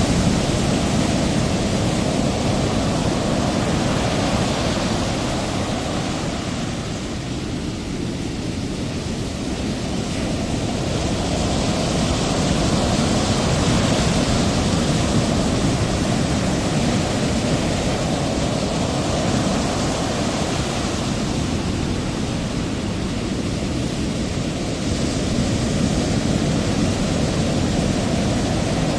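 Ocean surf: a continuous wash of noise that slowly swells and eases, softer about a quarter of the way in and again about three-quarters through.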